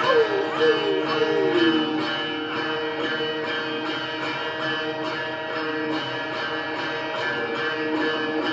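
Instrumental music: a plucked-string melody over held droning notes and a steady beat, with a few sliding notes falling in pitch in the first two seconds.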